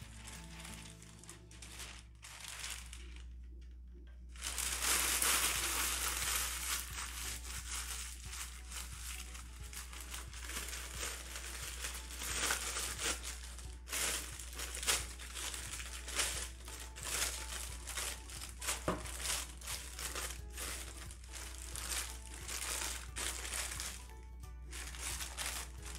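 Parchment paper crinkling and crumpling as it is handled, heard over background music.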